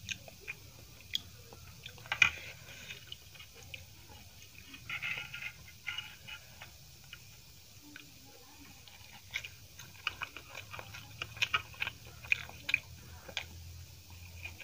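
Close-up eating sounds: a steel spoon clinks in a steel bowl of chutney, then scattered small clicks and soft wet sounds as a large steamed veg momo is handled, bitten and chewed.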